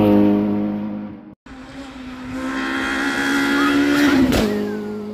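Rally cars' engines running hard at high revs on a special stage, the sound breaking off briefly about a second and a half in and another car's engine taking over. Near the end its pitch drops sharply with a short sharp crack, as the driver lifts off or shifts.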